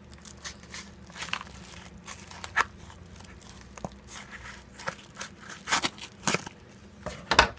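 Parcel packaging being opened by hand: irregular crackling, crinkling and tearing, with the loudest rustle near the end.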